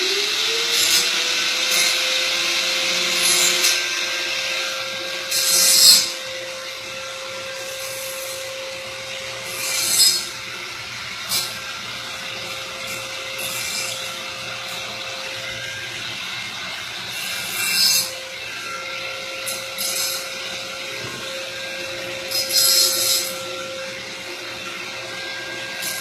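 Small electric sanding tool running with a steady whine, sanding a cut pipe end to prepare it for soldering. It grows louder and harsher in several short surges as it bears on the pipe.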